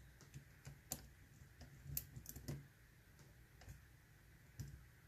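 Faint, irregular clicks and taps of a lock pick and tension tool working the pins of a Mul-T-Lock Interactive dimple padlock during single-pin picking, the loudest about one and two seconds in.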